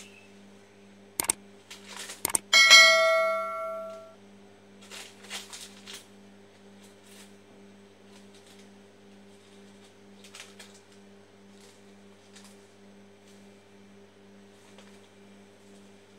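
Two sharp clicks and then a bell ding that rings and fades over about a second and a half: a subscribe-button sound effect. After it come faint, scattered paper-crinkling sounds from a dog chewing paper, over a steady low hum.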